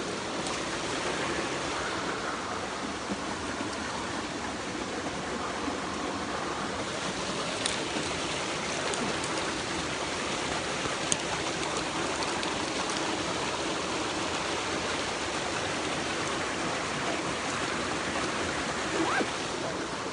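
Mountain stream water rushing steadily over rocks, with a few faint ticks about eight and eleven seconds in.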